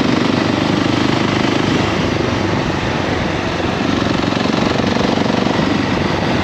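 A2-restricted KTM 690 SMC R's single-cylinder engine running steadily while riding, its fast thumping pulses loud close to the microphone, with wind rush over it; the level sags slightly about halfway through.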